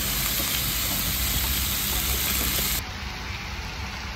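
Pork belly sizzling on a hot grill tray: a loud, even hiss that cuts off suddenly near the end, leaving a quieter low background hum.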